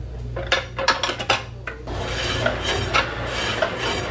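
Kitchen work: a few sharp knocks of utensils on cookware, then about two seconds of rasping scraping.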